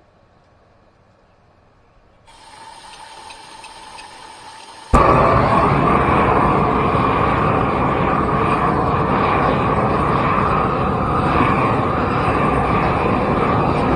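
Propane weed-burner torch: gas hisses from the nozzle for a couple of seconds, then lights with a sudden pop about five seconds in and burns with a loud, steady rush of flame, now at full strength after earlier sputtering.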